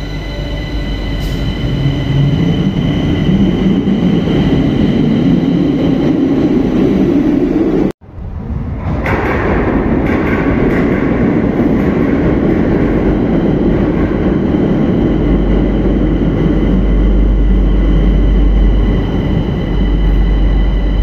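Madrid Metro train pulling out of the platform, its motor hum rising in pitch as it speeds up, with steady high whining tones above. After a brief break about eight seconds in comes the continuous noise of a metro train in the station, with a deep rumble in the last few seconds.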